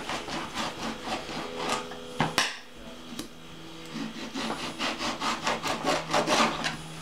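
Knife sawing back and forth through a lemon on a plastic cutting board, quick rasping strokes about three a second. A sharp knock comes a little over two seconds in, then a short pause before the strokes resume.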